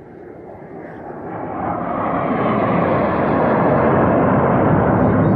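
Low-flying F-16 fighter jet approaching: its jet noise grows steadily louder over about three seconds, then holds loud as it passes close.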